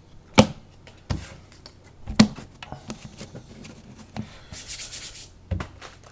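Hands handling trading cards and packs: card stock rubbing and sliding, with about five sharp taps and a brief bright rustle a little before the end.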